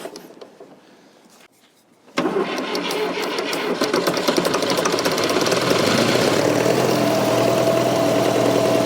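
Fordson Super Major's 3.6 L four-cylinder diesel engine comes in suddenly about two seconds in and runs rough and rattly, with heavy blow-by and starved of fuel. A steady high tone joins the engine sound about seven seconds in.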